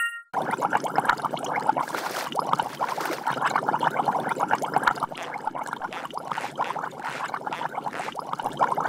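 Electronic foot spa beeping once as it is switched on, then its water bubbling and gurgling steadily as the bubble massage runs.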